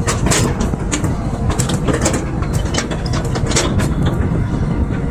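Excavator engine running, with irregular metallic clanks and rattles.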